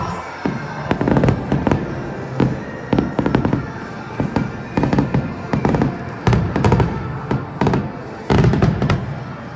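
Aerial fireworks bursting in a rapid, irregular string of booms and bangs, several a second, with music playing underneath.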